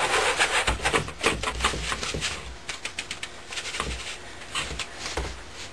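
A rubber-gloved hand rubbing damp fireworks composition through a 20-mesh screen: rapid, irregular scratching and rasping against the wire mesh, with light knocks, busiest in the first two seconds and thinning out after.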